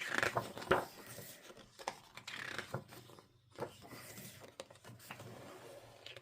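Album photobook pages being turned and handled: paper rustling, with soft scrapes and clicks.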